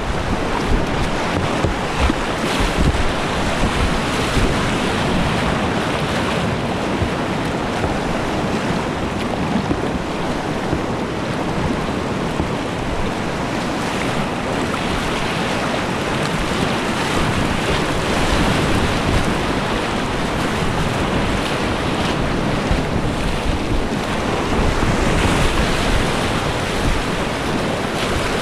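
Loud, steady rush of whitewater rapids around a kayak, with low rumbling buffeting of water and wind on the camera microphone.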